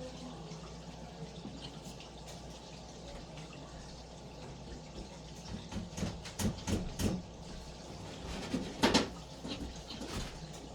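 Packing and box contents being handled: a run of short knocks and rustles about six to seven seconds in, and a louder knock near nine seconds, over a steady hiss with a low hum.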